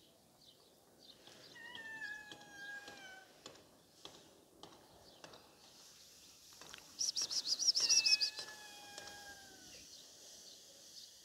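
Birds chirping. About seven seconds in comes a quick run of high chirps, the loudest sound, and there are two long calls that slide slowly down in pitch, one near the start and one near the end, with faint scattered ticks between them.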